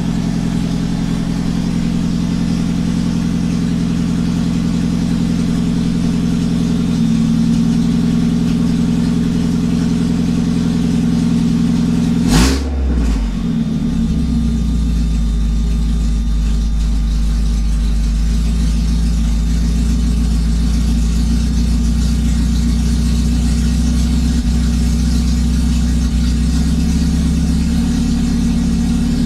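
A 1995 Mazda Miata's 1.8-litre four-cylinder engine idling loudly just after starting, with one quick blip of the throttle about twelve seconds in. The loudness comes from an exhaust that is waiting on replacement parts.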